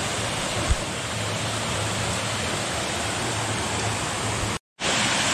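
Small creek waterfall pouring into a pool, a steady rushing of water, with one short low thump about a second in. Near the end the sound drops out for a moment and comes back as a brighter, closer rush of cascading water.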